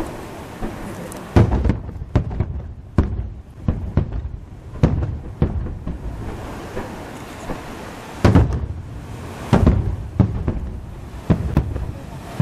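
Fireworks display: a rapid series of shell bursts, deep booms and sharp cracks at uneven intervals. The loudest come about a second and a half in and again around eight and ten seconds in.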